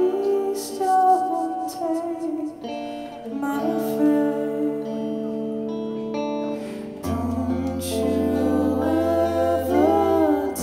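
Live rock band playing an instrumental passage: electric guitar holding sustained chords, with the bass guitar coming in strongly about seven seconds in.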